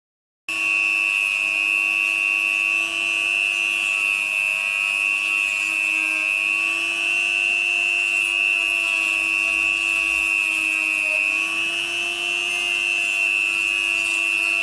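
HILDA JD3321C electric rotary tool, fitted with a sanding-band bit, starting up about half a second in and running at high speed with a steady high-pitched whine. Its pitch sags slightly a couple of times, as under load.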